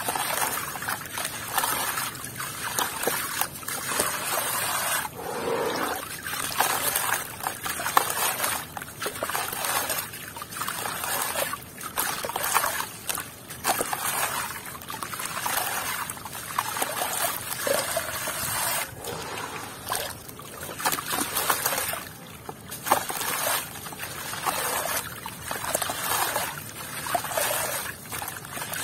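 A soaked, gritty block being crumbled by hand, wet grit and small clumps pattering and trickling into a tub of water in repeated surges.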